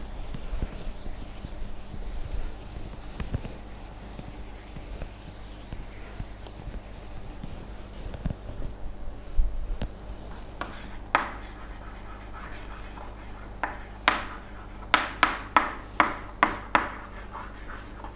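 Scratching and rubbing handling noise over a steady low electrical hum, then, from about ten seconds in, a quick run of about a dozen sharp clicks.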